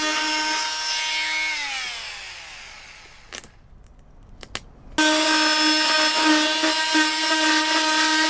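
Corded oscillating multi-tool cutting through pine ceiling cladding with a steady buzz. It is switched off about a second and a half in and its pitch falls as it winds down; after a pause with a few light taps it starts again suddenly about five seconds in and keeps cutting.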